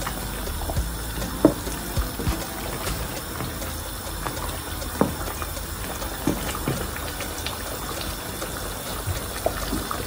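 Wooden spoon stirring thick tomato-based chicken soup in a stainless steel pot, the liquid sloshing, with a few short knocks of the spoon against the pot.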